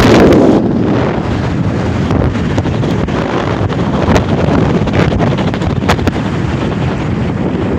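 Strong wind buffeting the phone's microphone on the open deck of a moving cruise ship, a dense low rumble that is loudest in the first half-second and then eases a little.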